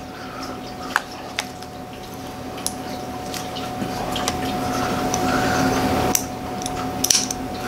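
A memory card's plastic blister pack being handled: scattered sharp clicks and rustling that grows louder midway, over a steady low hum.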